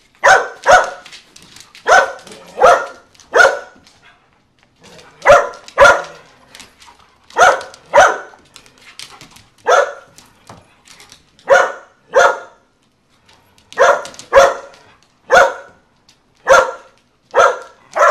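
A dog barking repeatedly during rough play with other dogs: about seventeen short, sharp barks, often in pairs half a second apart, with brief pauses between.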